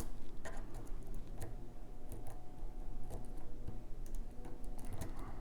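Lock pick and tension wrench working the pins of a pin-tumbler challenge lock: scattered small metallic clicks and ticks at an irregular pace as pins are lifted and set.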